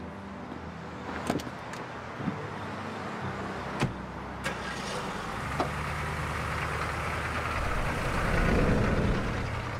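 A car's engine running steadily. A few sharp clicks fall in the first half, and a low rumble swells louder shortly before the end.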